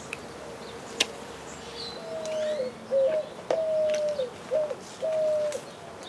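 A dove cooing: a repeated phrase of low hooting notes, long ones alternating with short hooked ones, starting about two seconds in. A single click about a second in and faint small-bird chirps come before the cooing.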